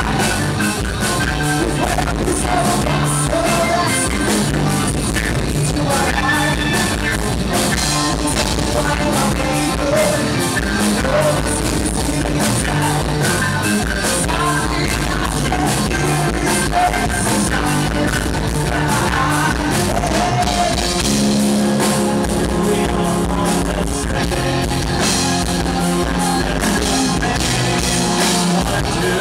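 Rock band playing live with a singer: guitar and drum kit, steady and loud.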